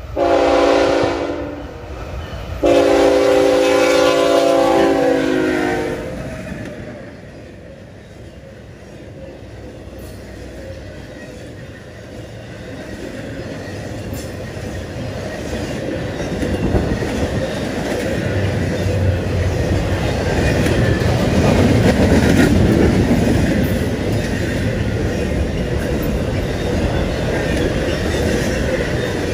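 Locomotive air horn sounding a chord, a short blast then a longer one that fades after about six seconds. The freight train's engines and wheels then rumble louder as it closes in, loudest about two-thirds of the way through, with wheel clatter on the rail joints as it passes.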